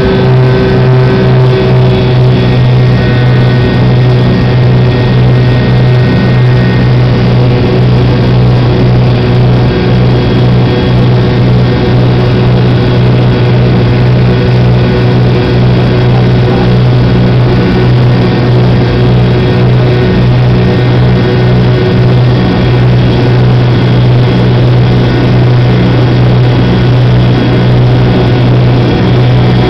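Jet airliner's turbofan engine heard from inside the cabin right beside its nacelle: a loud, steady drone over a strong low hum. A few higher whining tones fade out within the first several seconds.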